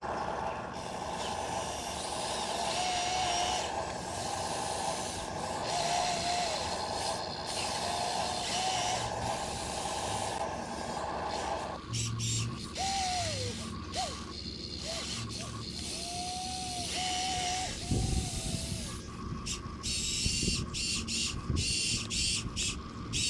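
Small electric motors of an RC excavator and RC dump truck whining, the pitch rising and falling as the machines move, with a few dull knocks in the last few seconds.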